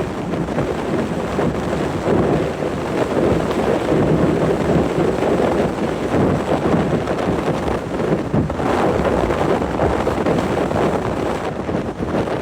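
Strong wind buffeting the microphone: a loud, unsteady rush that swells and falls in gusts.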